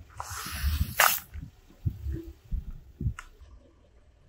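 Car tyre rolling onto a plastic squeeze tube, likely toothpaste, on concrete: a hiss as the tube is pressed flat, then a sharp pop about a second in as it bursts, with a low rumble underneath and a smaller click a couple of seconds later.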